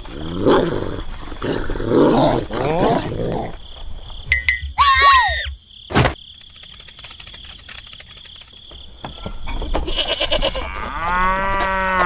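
Animal sound effects: a run of short pitched animal cries in the first few seconds, then a high gliding call about five seconds in and a sharp click just after. A cow moos in one long call near the end.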